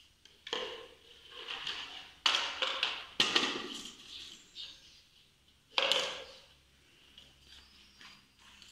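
Plastic training cones and a hockey stick clattering and scraping on a tiled floor as the cones are handled and set down. There are a few short scrapes and knocks, the loudest about two to three and a half seconds in and another about six seconds in.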